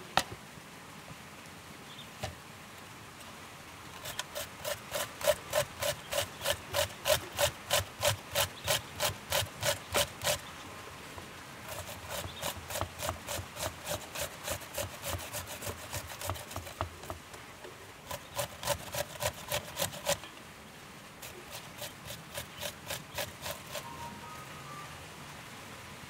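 Onion being grated on a metal box grater into a ceramic bowl: rhythmic rasping strokes about three a second, in four runs broken by short pauses. A single knock at the very start as the bowl is set down.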